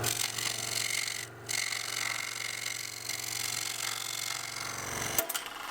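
Scroll saw running with a steady motor hum and the hiss of its blade cutting 1/4-inch Baltic birch. About five seconds in it stops suddenly with a click, as the blade has broken.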